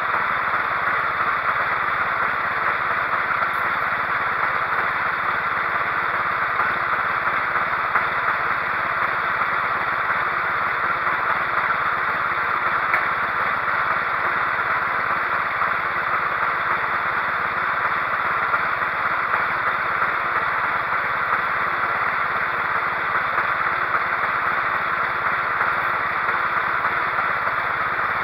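Cub Cadet 1330 lawn tractor engine running steadily at an even speed, a constant noisy drone with no change.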